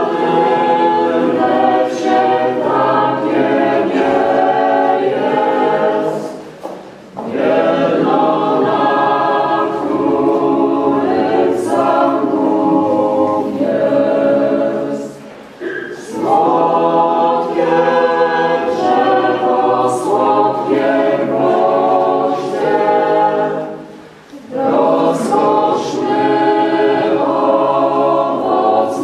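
Choir singing in long phrases. Brief breaks fall about six and a half, fifteen and a half and twenty-four seconds in.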